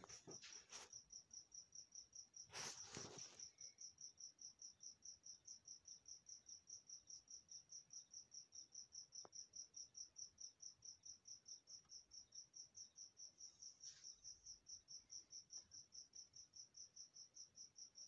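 A cricket chirping in a steady, even, high-pitched pulse, about four or five chirps a second, with a short rustle about three seconds in.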